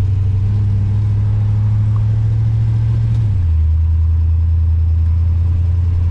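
A 1971 Dodge Demon's 318 V8 running under way, heard inside the cabin as a loud, steady low exhaust drone from dual exhausts that exit just behind the passenger seat. A little past halfway through, the drone steps down to a lower pitch and then holds steady.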